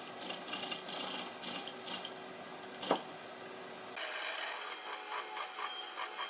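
Rhythmic rasping, scraping strokes of tool work on the car body, a few strokes a second, turning brighter and sharper about four seconds in.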